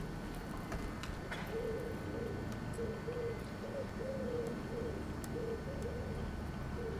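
A pigeon cooing, repeating short low coos in little groups. A few faint clicks come before the cooing starts.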